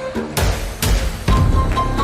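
Background music with strong percussive beats and a deep bass line under a sustained melody.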